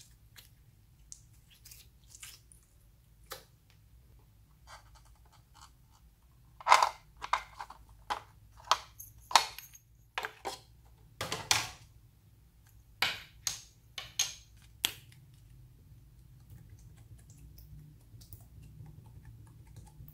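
Faint squishing of clear slime at first. From about six seconds in comes a run of sharp plastic clicks and knocks, about a dozen over some nine seconds, as a plastic pencil case and a marker are handled.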